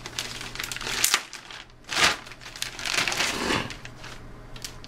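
Plastic anti-static bag crinkling and rustling as a motherboard is slid out of it, in irregular bursts, the loudest about two and three seconds in.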